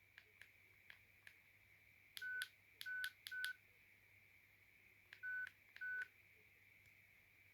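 JWD S300 mobile phone keypad beeping as its buttons are pressed to move through the menus: a few faint key clicks, then five short single-pitch key tones, three in quick succession and then two more.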